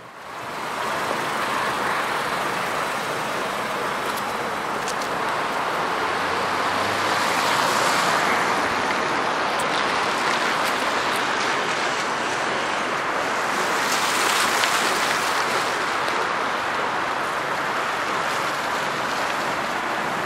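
Steady hiss of road traffic, swelling a little about 8 seconds in and again around 14 to 15 seconds.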